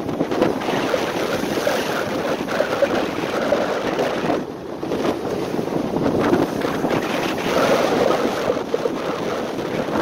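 Rough sea waves surging and breaking against a concrete seawall, mixed with wind blowing on the microphone. There is a brief lull about four and a half seconds in.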